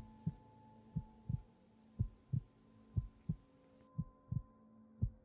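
Heartbeat sound effect: a low double thump about once a second, over a faint steady hum.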